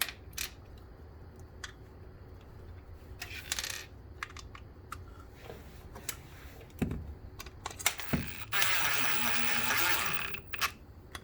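Small clicks and taps of hands handling small parts while a rubber grommet is pushed onto a display panel mount, with a louder rubbing, scraping sound lasting about a second and a half near the end.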